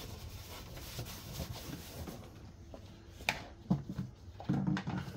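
Faint handling noises as a plastic oil funnel and rag are lifted off an engine's oil filler neck, with one sharp click about three seconds in.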